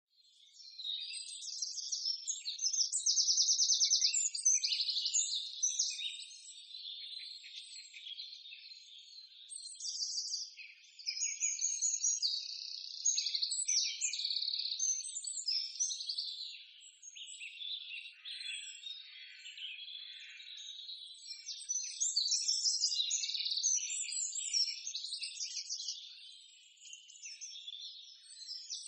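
High-pitched animal chirping and rapid trills throughout, swelling and fading in waves, with no low sounds under it.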